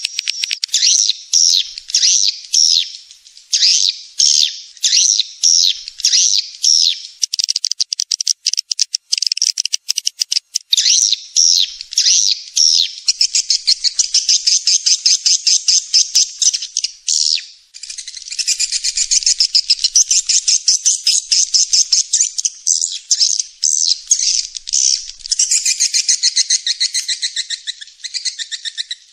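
Swiftlets twittering, played as a lure call for swiftlet houses. Short high chirps come about two a second at first, then give way to fast, buzzy trills that run on almost without pause.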